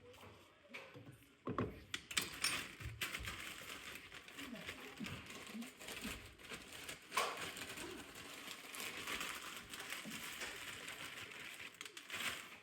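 Jollof rice with vegetables being stirred and tossed in a pot: scraping, rustling and clicks over a steady hiss, starting about a second and a half in.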